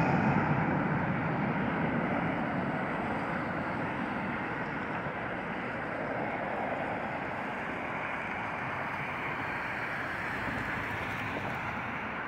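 Engine roar of a low four-engine military jet fading away over the first few seconds, then a steady distant roar that holds level.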